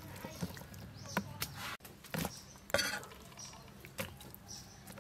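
Scattered light knocks and clatter as chunks of cut tire track eel are handled in a plastic colander.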